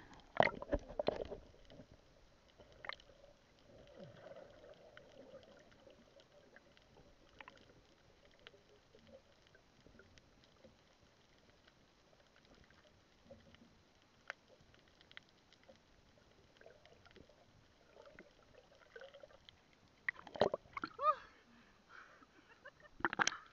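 Splashing as a free diver ducks under the sea, then muffled underwater sound through the camera, a faint hum with scattered small clicks, while he swims down along the net. Splashing comes back loudly as he surfaces near the end.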